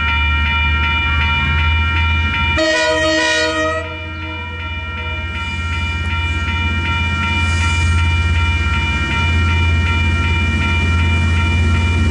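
Western Cullen Hayes electronic level-crossing bells ringing steadily over the low rumble of an approaching diesel locomotive. About two and a half seconds in, the locomotive gives one horn blast lasting about a second and a half.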